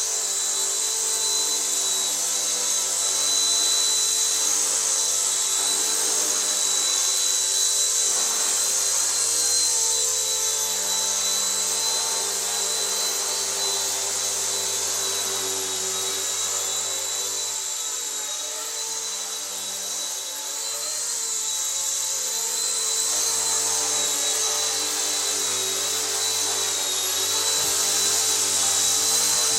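RC ERA C138 Bell 206, a 1/33-scale flybarless micro RC helicopter, in flight: a steady high-pitched motor whine with rotor hum that rises and falls slightly as the throttle changes.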